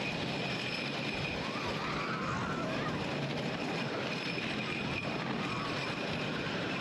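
Steady rushing, rumbling noise of a roller coaster ride in motion, with faint wavering voices in the background.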